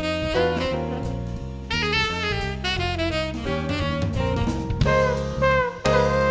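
Background jazz music: a saxophone plays a bending melody over a drum kit and a moving bass line.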